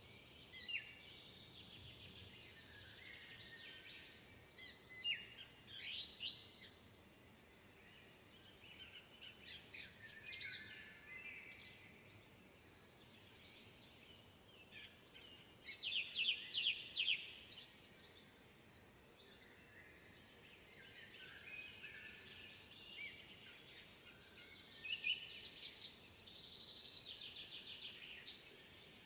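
Songbirds twittering and singing, with bursts of quick, high trilled phrases every few seconds, the loudest a little past the middle, over a constant faint chatter of more distant birds.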